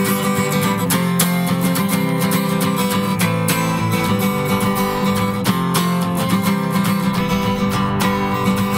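Takamine acoustic guitar strummed in a steady rhythm, chords ringing with no singing over them: an instrumental break in the song.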